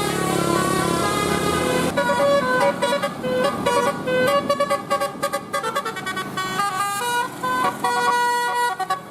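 Bus 'telolet basuri' musical air horn playing a fast tune of short notes that step between pitches, with one longer held note near the end. A bus engine rumbles under it for the first two seconds.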